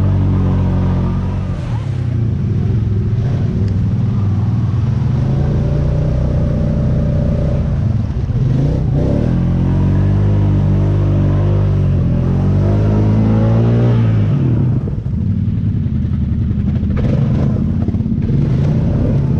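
ATV engine revving up and down under load, with a long climb in revs from about nine to fourteen seconds in that drops off suddenly, then running steadily again.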